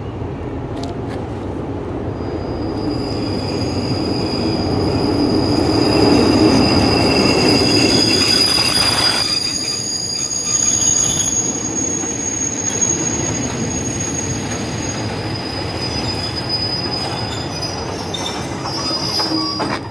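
Thai ordinary passenger train pulling into a station, its coaches rolling past close by with a rumble of wheels on rail that swells to a peak a few seconds in. Several high, steady squeals from the running gear ride over it as the train slows to stop.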